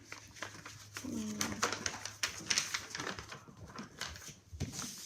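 Drawing strokes and light taps on paper, a rapid irregular series of short scratches and ticks, with a short low call about a second in.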